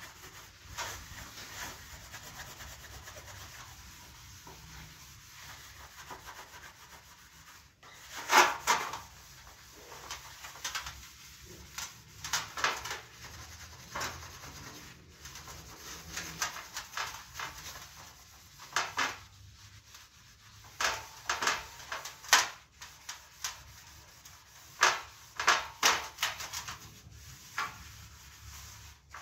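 Steel wool (Bombril) pad scouring grease off a metal gas stovetop, rubbing in circles. Faint at first, then louder, irregular scratchy strokes from about eight seconds in.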